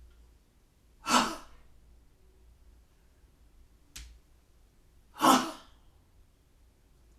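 Two sharp, forceful breaths, about four seconds apart, each lasting about half a second, as a person performs a qigong exercise; a faint click comes between them.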